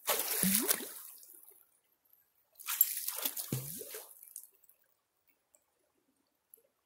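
PVC hand suction dredge working in shallow creek water: two strokes about two and a half seconds apart, each a splashy gush of water with a short gurgling rise in pitch.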